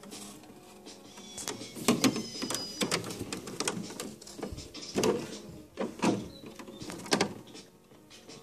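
Irregular knocks, clicks and scrapes on a hard plastic toy van, in several loud bunches, with quieter rustling between them.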